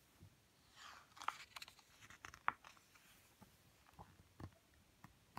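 Faint rustle of a picture book's paper page being turned by hand, with a few light clicks and taps of the paper and the book as it settles.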